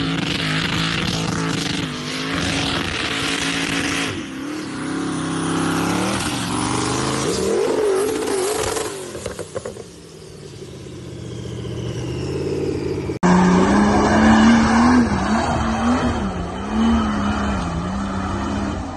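Off-road 4x4 engines revving hard under load in loose sand, their pitch rising and falling, with a loud hiss over the first few seconds. After an abrupt cut about 13 seconds in, another 4x4's engine strains at high revs, its pitch wavering.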